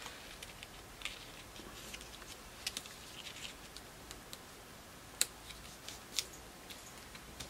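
Faint scattered clicks and rustles of fingers handling and pressing small paper embellishments onto a scrapbook page, with a few sharper ticks, the loudest about five and six seconds in.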